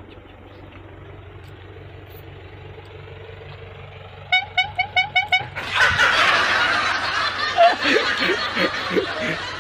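A horn tooting in a quick run of about seven short beeps about four seconds in, over a low steady hum. A louder, rough, noisy sound follows for about four seconds.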